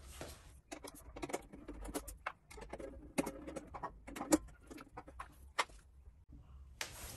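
Fast-forwarded sound of a screwdriver taking the screws out of an inverter's metal cover: a quick, irregular run of small metallic clicks and clinks.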